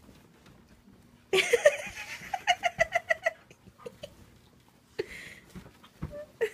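A woman's high-pitched laughter: a sudden squeal about a second in, breaking into a quick run of staccato "ha-ha" beats, with a few short knocks and sounds near the end.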